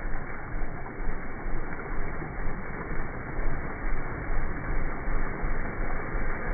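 Small motorcycle engine running at low speed while the bike fords a shallow rocky stream, mixed with water splashing and churning around the front wheel.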